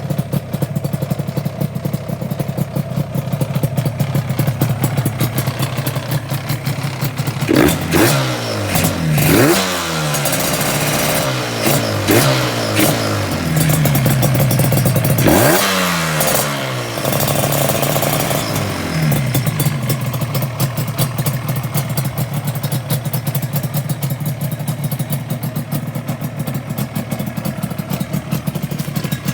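Yamaha RZ250's two-stroke parallel-twin engine idling, blipped up in revs several times in the middle and then settling back to a steady idle.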